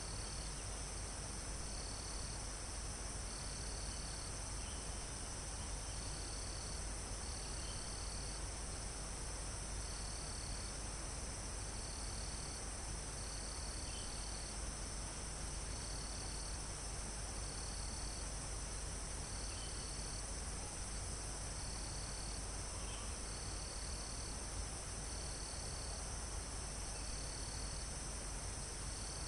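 Crickets and other insects in a forest, making a steady high-pitched chorus. One insect trills in short spells about every second and a half, with a few faint high chirps and a low wind rush underneath.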